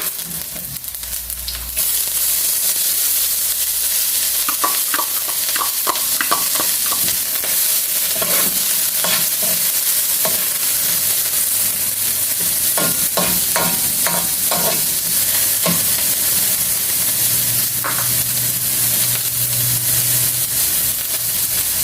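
Garlic and onions sizzling in hot cooking oil in a pan, the sizzle jumping louder about two seconds in as the onions go in, then holding steady. A spatula clatters and scrapes against the pan in short runs as it is stirred.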